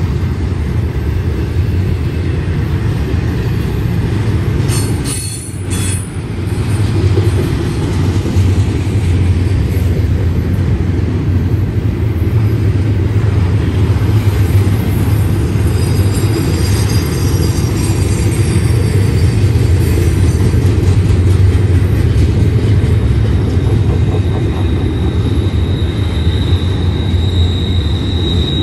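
Double-stack intermodal well cars of a freight train rolling past close by: a steady, loud rumble of steel wheels on rail. A brief lull with a few sharp clicks comes about five seconds in, and a high steady wheel squeal sets in near the end.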